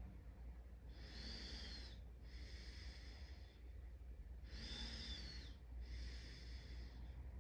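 A person breathing slowly through the nose close to the microphone: two full breaths, each an in-breath and an out-breath of about a second, with a faint whistle, over a steady low rumble.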